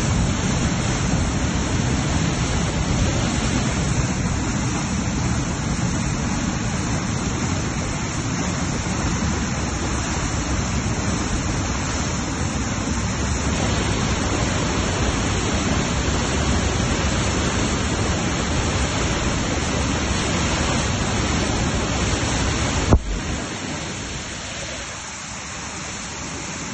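Floodwater rushing in a swollen river: a loud, steady rush of water. Near the end a sharp click is heard, after which the rush is quieter and has less low rumble.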